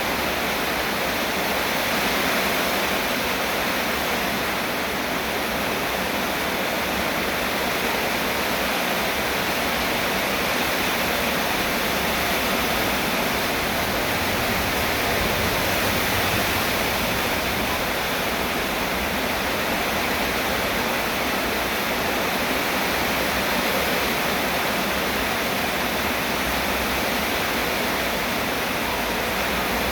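Steady heavy rain: a continuous, even hiss of falling water that does not let up.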